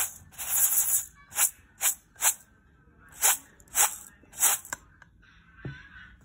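Dry uncooked rice grains rustling in a stainless steel bowl as a hand sweeps and stirs through them: a run of short swishes about half a second apart, one longer one near the start, then a pause with a soft knock near the end.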